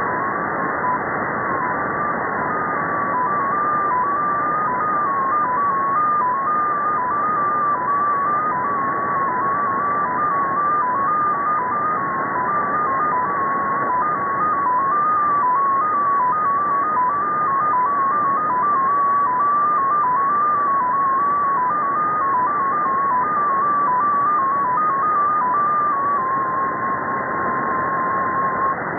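Russian data station XPA2 received on shortwave in upper sideband: a stream of short tones hopping up and down between a few pitches around 1 kHz, over steady receiver hiss. Near the end the tones stop hopping and settle into one held tone.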